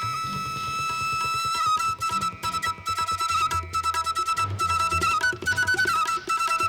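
Background music: a flute-like melody held and ornamented over a quick, even drum pulse.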